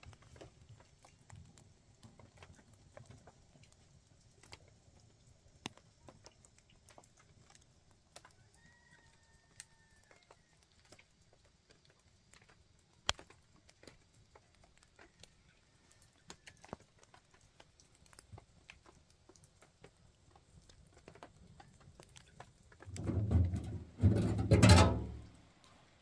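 Light rain outdoors: scattered drip ticks over a faint low hum, with a short bird chirp about nine seconds in. Near the end comes a loud two-part burst lasting about two seconds.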